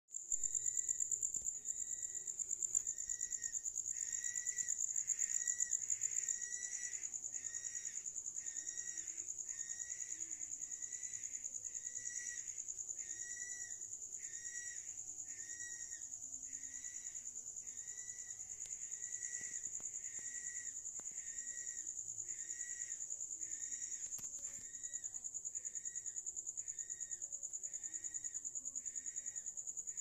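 A short, clear call that the uploader takes for a bird's, repeated evenly a little faster than once a second, over a steady high-pitched chorus of crickets.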